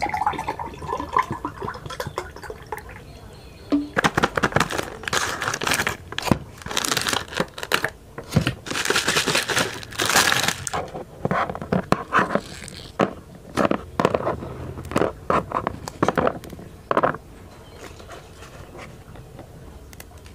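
A drink poured from a plastic bottle into a tall glass, rising slightly in pitch as the glass fills. Then a plastic snack wrapper crinkles and tears in irregular bursts as it is opened, going quiet near the end.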